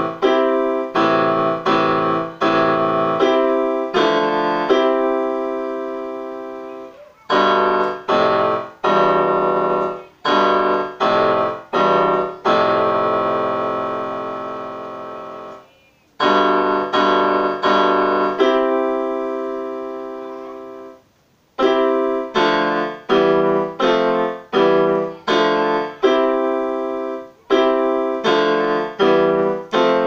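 Chords played on an electronic keyboard with a piano sound: runs of repeated struck chords broken by long held chords that fade out, twice dying away to a brief silence.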